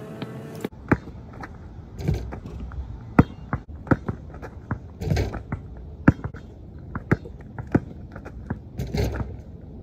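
Basketball dribbled on an outdoor court of interlocking plastic tiles, a sharp bounce about once a second, mixed with the scuffs and thuds of sneakers on the run-up and jump.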